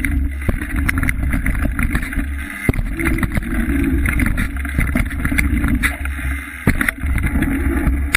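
Mountain bike riding over a dirt and leaf-covered jump trail: wind buffeting the microphone as a steady low rumble, with tyre noise and frequent sharp rattles and knocks from the bike over bumps and landings.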